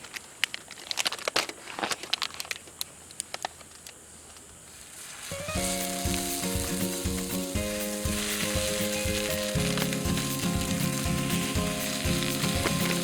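Food sizzling as it fries in a hot pan, the sizzle starting suddenly about five seconds in, after a run of sharp clicks and taps. Music with held notes plays underneath.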